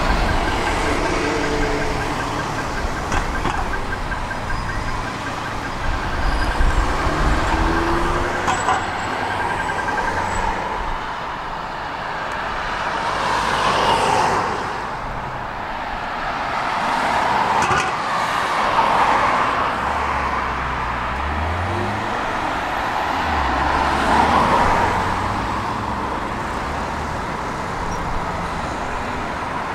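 Road traffic: an articulated city bus rumbles as it pulls away, then cars pass by in several swells. A rapid, high-pitched ticking runs through roughly the first ten seconds.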